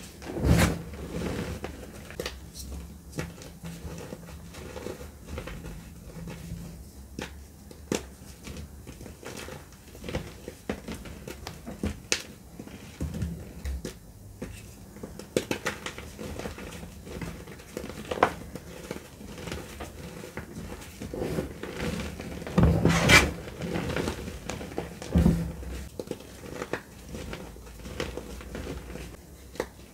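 Hands crushing and crumbling a large heap of dry gym chalk: a dusty, crumbly crunch with irregular crackles as lumps break, several louder crunches along the way, the loudest about 23 seconds in.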